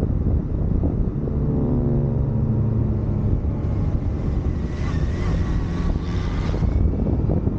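Honda motorcycle's engine running under heavy wind buffeting on a helmet-mounted camera, its note falling for a couple of seconds as the bike eases off through a bend. Midway a higher hiss with a thin whistling tone joins in for about three seconds.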